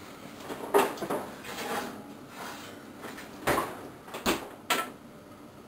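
Oven door and a metal baking pan being handled at a kitchen range: a series of knocks and clatters, the sharpest near the end.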